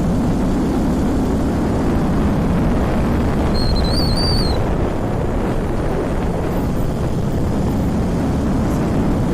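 Wind rushing over the microphone of a moving motorcycle, with its engine running underneath at a steady level. About four seconds in, a brief high wavering whistle-like tone sounds.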